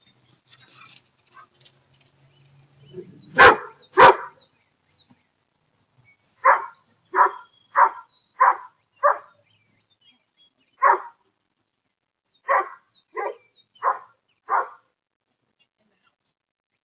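A dog barking at a deer: two very loud barks about three and a half seconds in, then a run of five quick barks, a single bark, and a run of four more.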